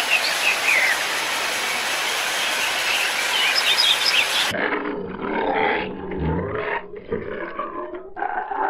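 Outdoor ambience of steady hiss with birds chirping. About halfway through it cuts to a low, rough animal vocalisation.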